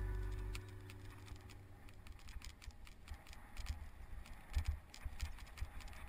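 Organ music fading out in the first half second, then a bicycle rattling over a bumpy dirt track: irregular clicks and jangles with short low thumps from the bumps.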